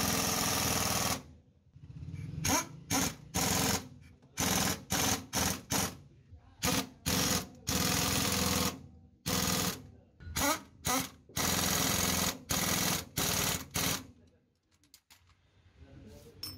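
Impact wrench hammering in about twenty short bursts, some up to a second long, as it runs down and tightens the bolts joining a truck's propeller-shaft universal-joint yoke to the differential flange. The bursts stop a couple of seconds before the end.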